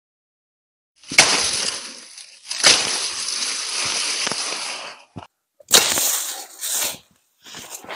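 Machete chopping into tall leafy stalks: three sudden crashing strikes, each followed by a second or two of rushing, crackling noise of foliage giving way.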